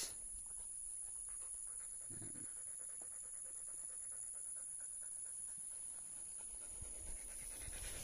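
A Belgian Malinois panting rapidly and steadily, tired and resting after a steep climb.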